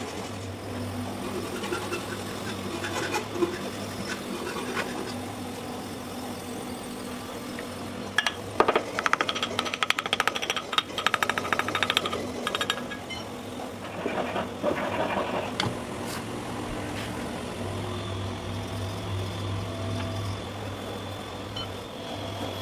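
Workshop machinery over a steady low hum. About eight seconds in, a burst of rapid, regular mechanical strikes lasts about four seconds, and a shorter burst follows a few seconds later.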